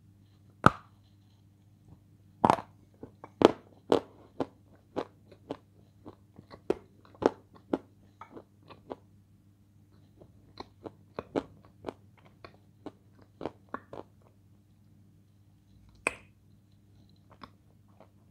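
A person bites into a firm, crunchy piece of food, with a sharp crack under a second in, and then chews it close to the microphone. Many short, crisp crunches come in a quick run that slows and stops about 14 seconds in, with one more crunch near the end.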